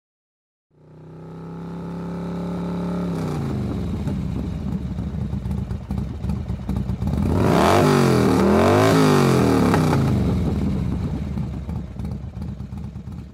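Motorcycle engine running and revving. It fades in, then is blipped up and down several times around the middle, which is the loudest part, and fades away at the end.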